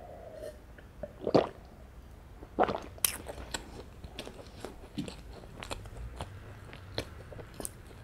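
Close-miked eating sounds: two loud gulps of milk about a second and a half in and a second later, then soft chewing of a mouthful of scone with many small wet mouth clicks.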